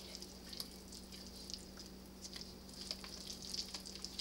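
Wooden spoon stirring thick, lumpy cake batter in a stainless steel mixing bowl: faint, irregular crackly stirring sounds.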